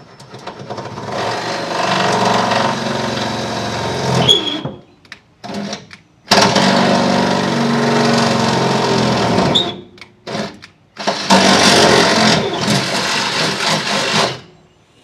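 Electric drill boring a mounting hole for an auxiliary fuel tank, its motor whining in three long runs with short pauses and brief blips between them; the first run speeds up gradually.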